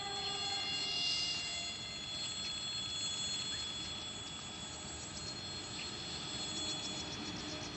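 The tail of a distant electric locomotive horn dies away in the first second, leaving the low, even rumble of an approaching freight train. Steady high-pitched tones and fast faint ticking sit over it.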